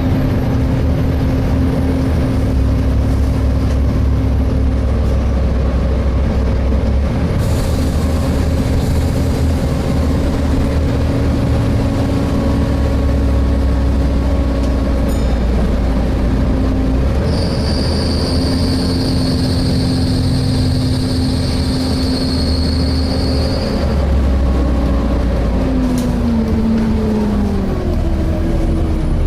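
Volvo B7TL double-decker bus on the move, heard from inside: steady engine and road rumble with a steady whining tone. About 17 s in, a high-pitched screech comes in for about six seconds: the noise the cooling fan makes when it tries to spin up to full speed. Near the end the engine tone falls in pitch.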